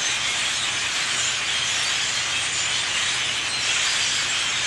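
A huge flock of birds calling all at once, blending into a steady, hissing din.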